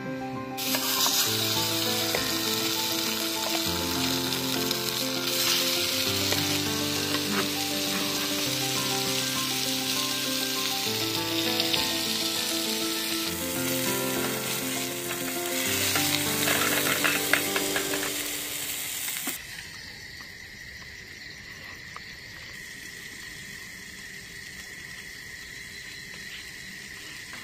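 Chicken kebab balls frying in hot oil in a pan on a camping gas stove: a loud steady sizzle, with background music under it. About 19 s in the sizzle drops to a much quieter hiss with a faint steady high tone.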